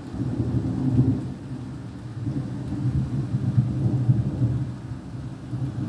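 Rolling thunder rumbling low, swelling about a second in and again a few seconds later, over the faint hiss of heavy rain.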